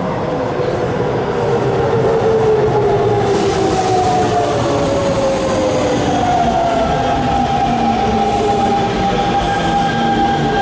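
Hanshin 5700 series 'Jet Car' electric train pulling into a station over rumbling wheel and rail noise. Its electric motors whine in several tones that fall in pitch as it slows for the stop, then settle into a steady high whine from about six seconds in.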